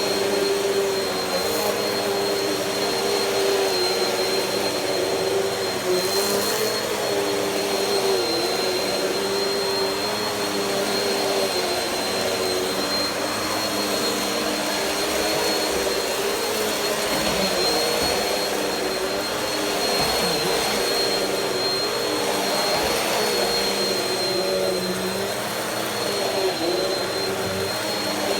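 Bissell CleanView upright vacuum cleaner running steadily, its motor hum dipping slightly in pitch now and then, over a thin high whine.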